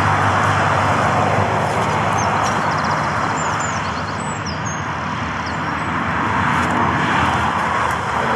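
Steady road traffic noise of cars passing on the roundabout's multi-lane road, with a vehicle's low engine hum strongest near the start. A few short bird chirps come through in the middle.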